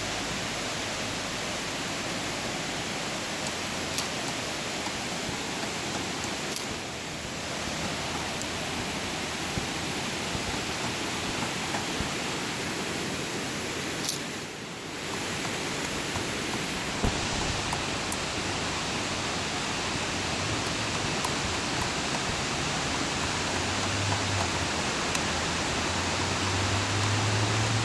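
Steady, even hiss of background noise with a few isolated sharp clicks; a low hum comes in near the end.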